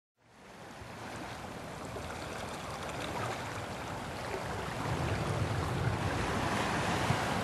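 A steady rushing noise, spread evenly from low to high, that fades in and grows slowly louder.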